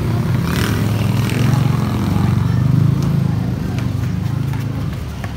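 A motorcycle passing close by, its engine getting louder to a peak about three seconds in and then fading away.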